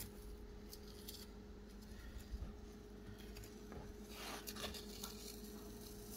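Blue painter's tape being peeled slowly by hand off a plastic kayak deck: faint crackling, tearing sounds, loudest about four seconds in.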